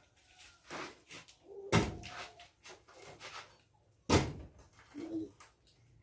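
Heavy wooden thuds and knocks as workers pound and pry at a wooden door frame set in a block wall: two loud blows, about two seconds in and about four seconds in, with lighter knocks between.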